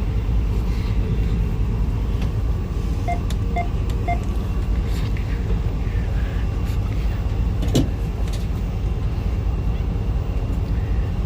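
Diesel locomotive running under throttle, a steady low rumble heard inside the cab. Three short beeps about three seconds in, and a single sharp click near the end.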